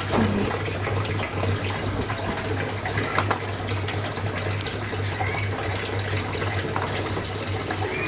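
A steady hiss with a constant low hum, and a few light clicks as a spoon mixes wet ground spices into a paste in a bowl.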